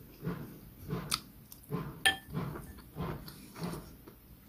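A person chewing a mouthful of dried yellow croaker with the mouth closed: soft mouth sounds about twice a second, with two sharp clicks about one and two seconds in.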